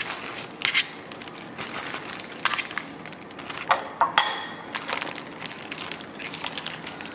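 Plastic zip-top bag crinkling and rustling in short irregular bursts as raw chicken breasts are slipped into it. About four seconds in, a spoon clinks against the marinade bowl with a short ring.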